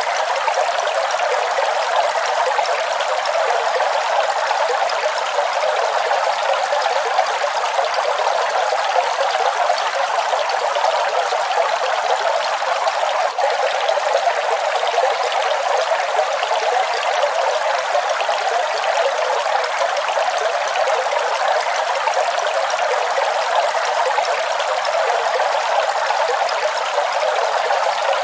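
Waterfall, steady rushing water with no pauses. It sounds thin and hissy, with no deep rumble, and there is a brief dip about halfway through.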